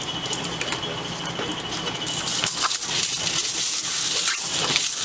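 Aluminium foil crinkling and rustling as it is handled, starting about two seconds in, over a steady background hiss with a faint high tone.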